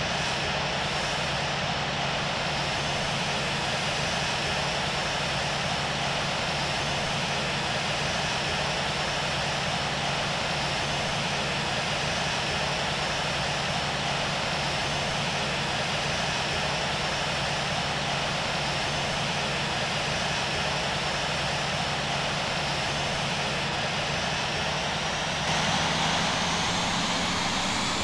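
Boeing 737-700's CFM56 jet engines running steadily. A few seconds before the end the engine tone starts to rise in pitch and the sound gets a little louder as the engines spool up.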